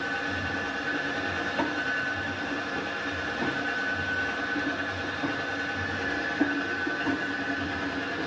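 Large metal lathe running steadily, machining the welded-up bush housing of a backhoe loader's swing cylinder back to the bush's size, with a steady whine and a few faint clicks.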